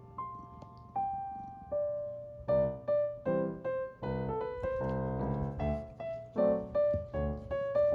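Background piano music: a slow, quiet melody for about two and a half seconds, then fuller, louder chords and notes.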